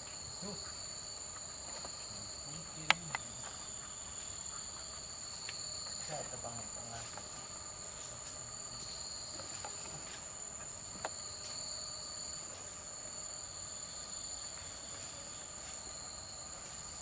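Steady, high-pitched insect chorus, with a second, lower shrill band that fades in and out. A single sharp click cuts through about three seconds in, with a fainter one just after, and another click comes near the eleventh second.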